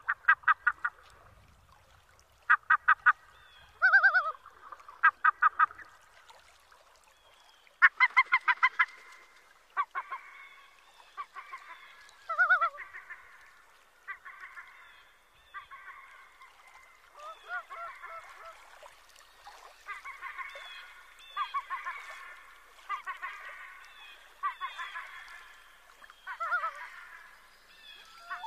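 A group of wild waterbirds calling. Short bursts of rapid pulsed calls and a few single honk-like calls come first, thickening into a dense, overlapping chorus in the second half.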